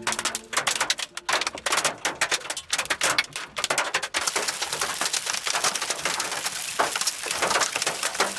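Rain pelting a car's roof and windshield: a dense, irregular patter of drops that thickens into a steady crackle about two seconds in.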